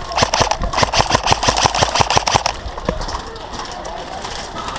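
Airsoft electric rifle firing on full auto: a rapid run of sharp shots about ten a second that stops about two and a half seconds in, followed by a few scattered clicks.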